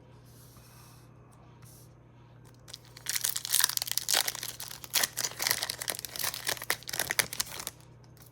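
Foil Pokémon TCG booster pack being torn open and crinkled: a dense crackling that starts about three seconds in and lasts about five seconds.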